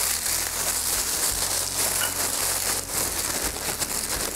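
Corn flakes crushed by hand inside a plastic zip-top bag: crinkling plastic and crackling cereal, over a steady sizzle from a pan on the stove.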